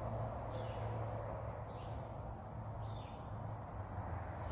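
Outdoor creekside ambience: a steady low hum under high, sweeping chirps of birds or insects, one rising and falling call about halfway through.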